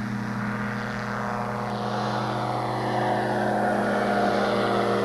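Microlight trike's engine and propeller droning steadily as the trike takes off and climbs, growing slightly louder.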